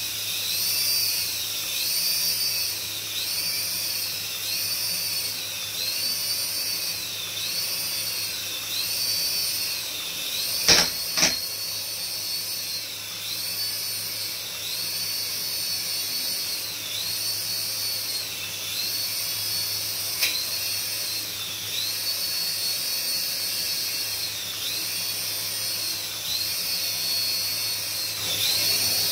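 Small electric rotor motors of a toy RC coaxial helicopter whining steadily while it hovers, the high pitch wavering down and up about once a second. Two sharp knocks come about eleven seconds in and another near twenty seconds.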